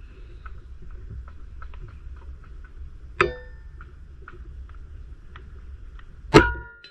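Air rifle shots at a slug-shooting range: two sharp cracks, each followed by a short metallic ring, about three seconds apart, the second one louder. Faint scattered ticks lie between them.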